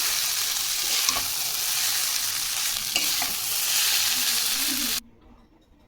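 Egg chowmein frying and being stirred in a hot pan: a steady loud sizzle with a few sharp clinks of the spatula against the pan. The sizzle cuts off suddenly about five seconds in.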